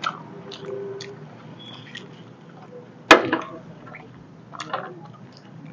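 Wooden chopsticks tapping and scraping against steel plates, a scatter of light clicks with one loud clack about three seconds in, followed by a brief vocal sound.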